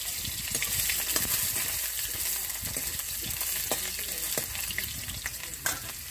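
Freshly washed potato pieces frying in hot mustard oil in a kadai, a steady sizzle with scattered short clicks.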